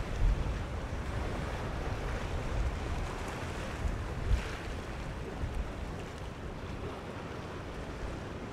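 Wind buffeting the microphone over the steady wash of surf and water.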